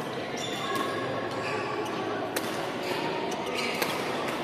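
Badminton rackets striking a shuttlecock in a doubles rally: several sharp cracks, the loudest near the end, over the murmur of a busy badminton hall with distant voices.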